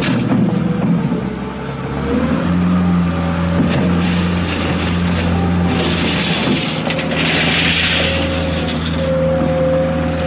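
New Holland LS170 skid steer's 52 hp diesel engine running. It dips briefly, then holds a steady, louder speed from about two seconds in.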